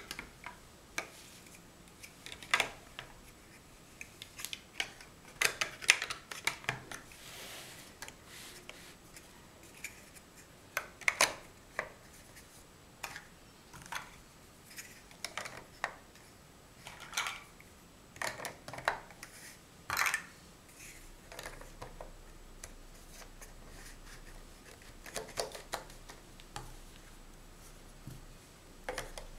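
Mega Bloks First Builders large hollow plastic blocks being handled and pressed together: irregular clicks and clacks of plastic on plastic, some single, some in quick clusters.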